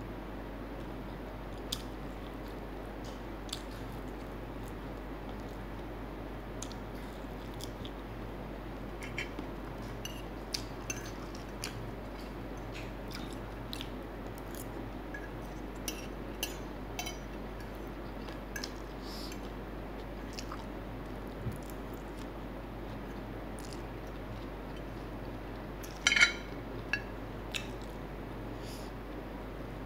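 Close-up eating sounds of fried chicken and Samyang spicy instant noodles: scattered chewing, biting and small clicks of a fork against a plate, with a brief louder clatter of the fork on the plate about 26 seconds in. A steady low hum lies underneath.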